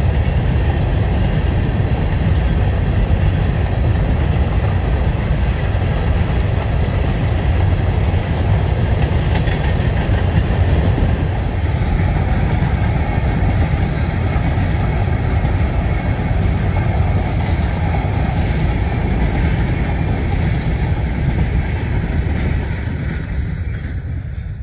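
Covered hopper cars of a long CSX freight train rolling past, a steady rumble of steel wheels on the rails. It dies away near the end as the last car goes by.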